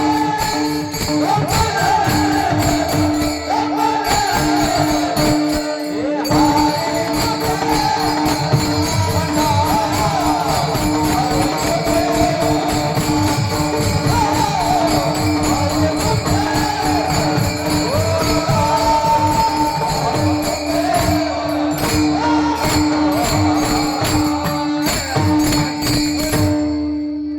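Devotional kirtan music: a steady drone note under a wavering, ornamented melody, with jingling percussion keeping the beat. The music fades out near the end.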